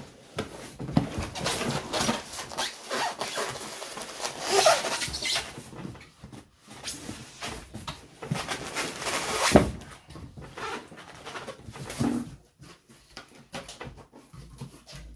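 Cardboard box and packaging being handled and rummaged through while an airbrush kit is unpacked: irregular rustling and scraping with knocks, the sharpest knock about nine and a half seconds in.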